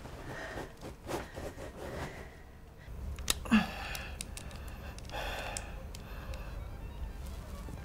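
A woman breathing close up: a sharp intake of breath with a short falling vocal sound about three and a half seconds in, and a breath out a little later, amid small clicks from a plastic object handled in her fingers.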